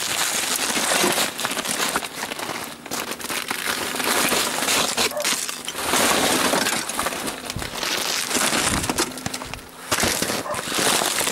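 Deep, packed snow crunching and crumbling in a dense run of crackles, from boots tramping through it and snow being broken up and pushed off the motorcycle.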